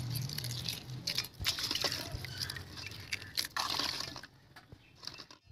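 Boiled eggs being cracked and peeled by hand over an aluminium bowl: quick crackling of shell and small clicks of shell pieces dropping into the bowl, with some wet splashing from water in it. The crackling thins out and goes quieter about four seconds in.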